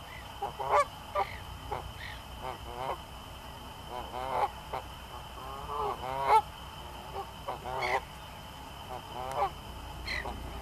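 Canada geese honking: short, nasal calls at irregular intervals, about one a second, some coming in quick pairs.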